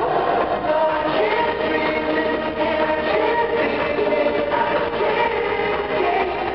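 A vocal group singing a pop song in harmony over music, played live and amplified at a soundcheck, with sustained sung notes.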